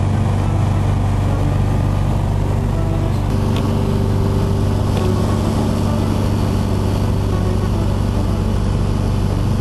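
Powered glider's engine running at a steady, even drone in flight; it cuts in abruptly at the start.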